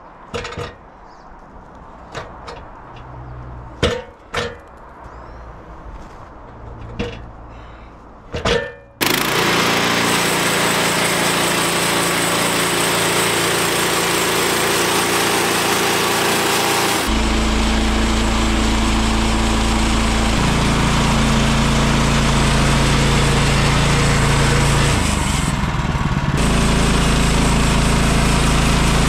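Scattered knocks and clunks, then a small gasoline engine abruptly starts running loud and steady. Its tone shifts partway through, and it dips briefly near the end.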